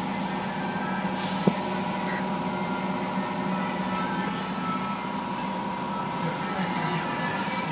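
Automatic car wash machinery heard from inside the car: a steady mechanical hum, with bursts of water spray hissing against the glass about a second in and again near the end. A single sharp knock comes about a second and a half in.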